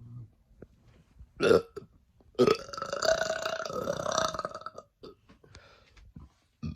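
A woman burping on purpose: a short burp, then a long drawn-out belch of about two and a half seconds holding a steady pitch.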